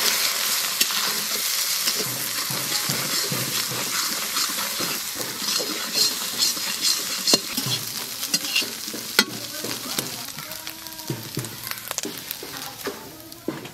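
Eggs sizzling in hot oil in an aluminium kadai while a metal spatula scrapes and stirs them into a scramble, with frequent small scrapes and taps against the pan; the sizzle fades near the end.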